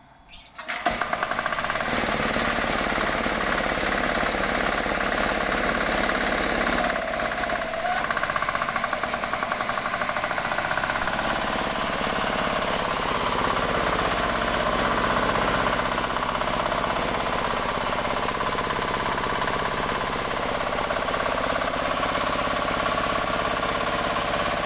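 An 18 hp diesel engine driving a new sawmill starts up about a second in and then runs loudly and steadily with a hard knocking beat.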